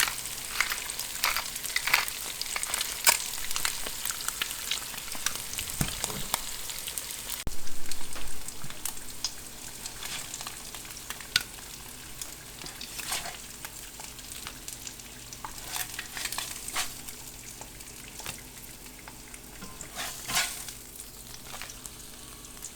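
Steady sizzling crackle dotted with small sharp pops, louder for a moment about a third of the way in.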